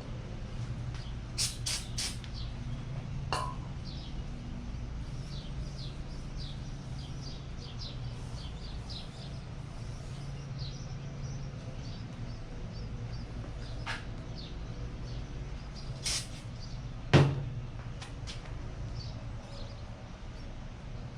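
Scattered clicks and metal clanks of work on an engine, the loudest a sharp knock about 17 seconds in, over a steady low hum, with birds chirping faintly throughout.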